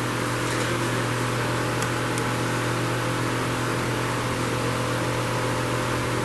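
Small electric fan running, a steady airy hiss over a low hum, with a couple of faint light clicks about two seconds in.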